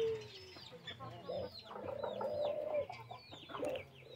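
Ringneck doves cooing: long, low, drawn-out coos, one falling away at the start and another held for about a second from about a second and a half in, over many short high chirps of smaller birds.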